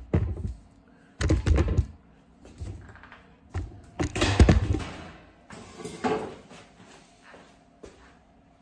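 A bowl of hot fondant sugar syrup being set down into a warm water bath in a sink: a series of about five heavy thunks and knocks against the sink, quieter after about six and a half seconds.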